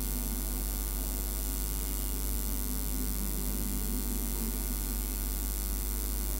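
Steady electrical mains hum with a constant hiss underneath, unchanging throughout.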